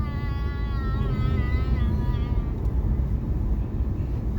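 Steady cabin rumble of a car driving on a snowy, unplowed highway, with tyre and engine noise. A faint, high wavering tone sounds over it for the first couple of seconds, then fades.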